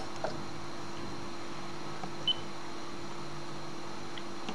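Steady low electrical hum and hiss, with a couple of faint clicks near the start and one short, high electronic beep about two seconds in.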